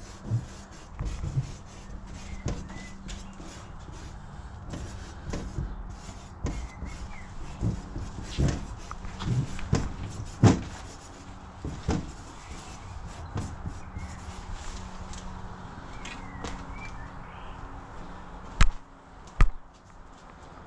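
Scattered light knocks and scuffs over a steady low background noise, with two sharp, loud clicks near the end.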